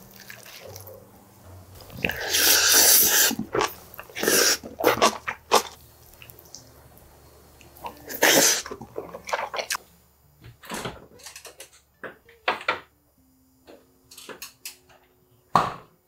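Close-miked eating sounds from a mukbang: a spoon working in a brass bowl of bibimbap, bites and chewing, in short separate bursts. The loudest is a long noisy rush about two seconds in.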